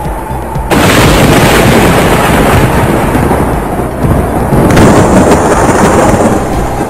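Strong storm wind gusting over the microphone: a loud, rushing noise with a low rumble that starts suddenly about a second in, eases slightly around four seconds and surges again.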